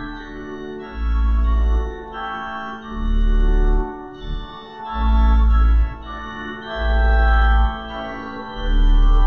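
Organ music: sustained chords, with a deep bass note swelling in about every two seconds.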